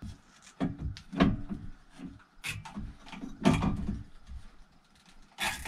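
Hands working on a mini ATV's wiring and frame: irregular knocks and clunks of parts and wires being moved, about one a second, with a brief sharp scrape near the end.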